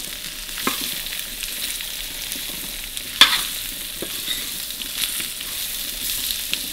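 Chopped onions and whole spices sizzling in oil in a stainless steel pan while a metal spoon stirs them, clinking and scraping against the pan now and then, most sharply about three seconds in.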